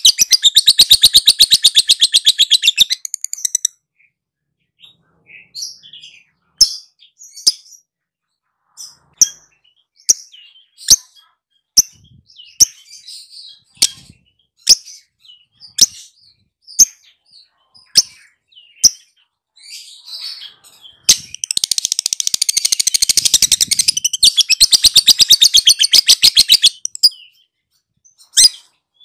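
Lovebird's chattering trill (ngekek): a fast, high rattling run for the first three seconds or so, then single sharp chirps about once a second, then a second long trill of about six seconds starting around two-thirds of the way through.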